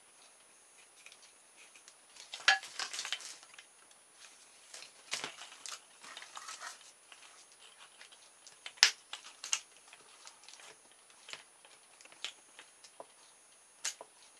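Light plastic clicks, taps and rattles as the CD wheels, bottle-top hubs and wooden skewer axle of a mousetrap car are handled and fitted. The sounds come in scattered short clusters, with the sharpest click about nine seconds in.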